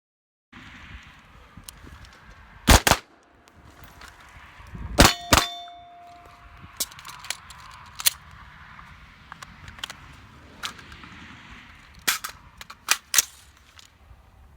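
Gunshots from an AR-15 rifle and a Glock 19 pistol: two close together about three seconds in, two more about five seconds in followed by a short metallic ring, and three near the end, with small handling clicks in between.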